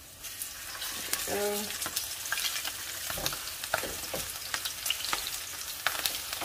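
Flour-coated bone-in chicken pieces sizzling in shallow hot oil, with frequent small crackling pops. The sizzle builds within the first second as more pieces are laid into the pan.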